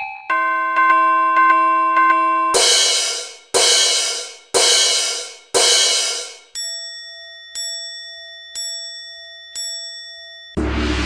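A sequence of level-crossing warning-bell sound effects: first a pitched ding struck repeatedly, under two a second, then four loud crashing cymbal-like strikes about a second apart, then four ringing bell dings about a second apart. Near the end a loud low rumbling noise cuts in abruptly.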